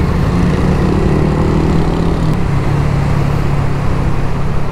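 Honda Winner X 150's single-cylinder engine running steadily under way, fitted with an aftermarket CBR exhaust, its pitch dropping a little about two seconds in.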